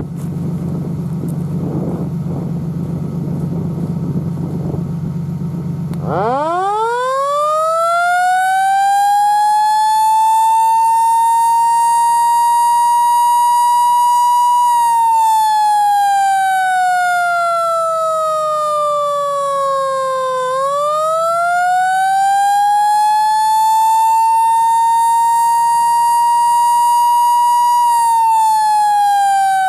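Federal Q2B electromechanical siren, powered off jumper cables, winding up from a standstill about six seconds in to a high steady wail. It then coasts down in pitch, winds up again to full pitch, and starts to fall away near the end.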